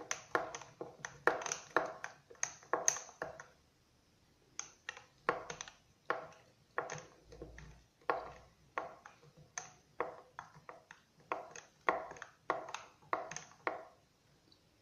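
A spoon stirring ground thyme and anise steeped in hot water, clinking repeatedly against the side of the container, about two or three clinks a second, with a brief pause a few seconds in.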